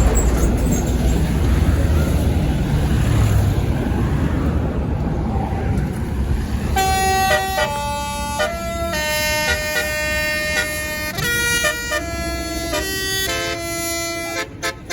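A tour bus passes with engine and road noise. About seven seconds in, its Basuri 'telolet' musical air horn starts and plays a tune, stepping from note to note.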